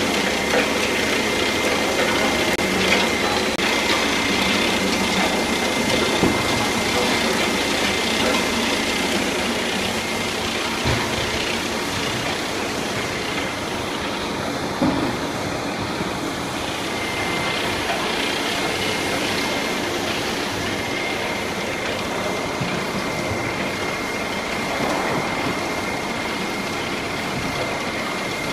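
Pouch packing line running: conveyors and drive machinery give a steady mechanical din with a constant high whine and a few scattered knocks.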